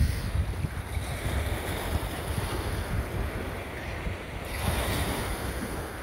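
Loud rollers of ocean surf breaking and washing up a sandy beach, a steady rushing hiss. Wind gusts on the microphone add a low, uneven rumble.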